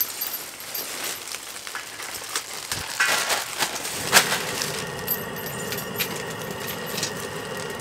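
Rustling and light clinks, then a sharp click about four seconds in as a portable gas stove burner under a griddle is lit; the burner then runs with a steady hiss.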